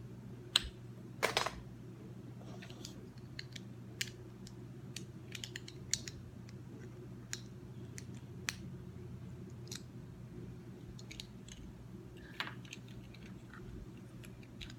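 Irregular light clicks and taps, spaced out with gaps of up to a couple of seconds, over a steady low hum.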